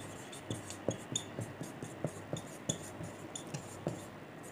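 Marker pen writing on a whiteboard: a quick string of short squeaks and taps, about three strokes a second.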